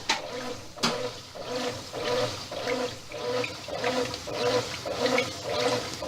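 Brastemp 8 kg washing machine agitating in rinse water. Water sloshes, and a motor hum pulses a little under twice a second as the agitator swings back and forth. Two sharp clicks come in the first second.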